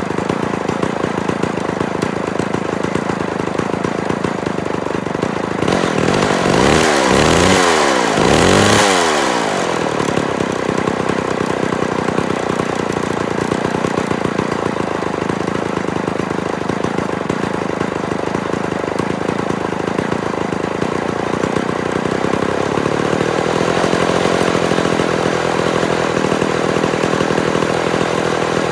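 Homelite XP-1000 two-stroke chainsaw engine idling, revved up and let fall back twice a few seconds in, and later settling to a slightly higher idle. It is being tuned on its first run with a Tillotson 324-clone carburetor.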